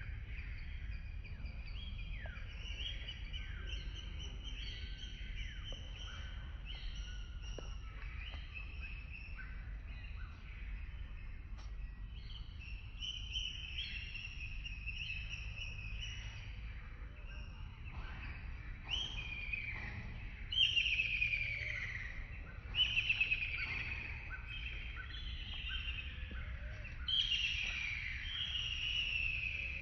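Several birds calling and singing at once: overlapping chirps and short falling trilled phrases, with louder nearby phrases about two-thirds of the way through and again near the end, over a steady low rumble.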